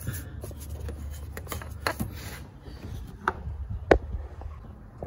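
A brush scrubbing foam-covered plastic and metal in an engine bay, with scattered clicks and knocks. The scrubbing stops a little over two seconds in, leaving a few sharp clicks.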